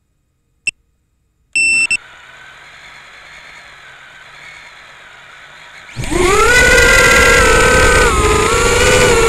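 A short beep and then a half-second beep, followed by the faint steady whine of a mini brushless quadcopter's motors idling. About six seconds in, the motors spool up sharply to a loud whine as the drone takes off, the pitch wavering as the throttle shifts.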